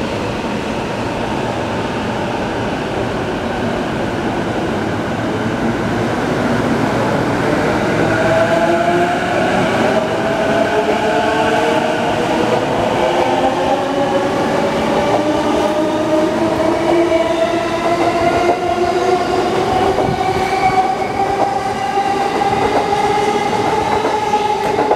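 E233-series electric train pulling away, its VVVF inverter and traction motors giving a whine that rises steadily in pitch as it gathers speed, from about a quarter of the way in, over the noise of the cars running past.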